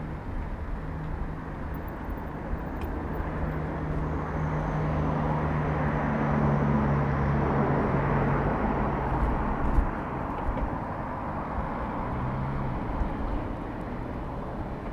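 Street traffic: a motor vehicle's engine hum and tyre noise swell to a peak midway and then fade as it passes.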